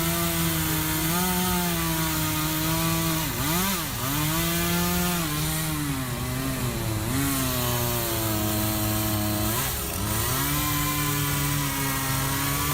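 Chainsaw running at high revs while cutting a tree, its engine pitch briefly dropping and recovering about three times as the chain loads up in the wood.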